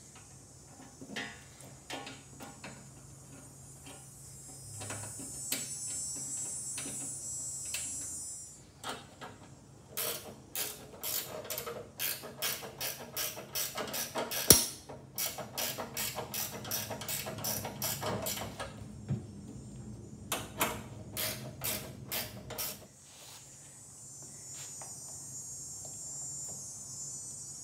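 Ratchet wrench clicking in quick, even strokes as the 10 mm bolts of a snow thrower's skid plate are run in. The clicking comes in two spells in the second half, with one sharper knock among them. A faint hiss and a low hum lie underneath.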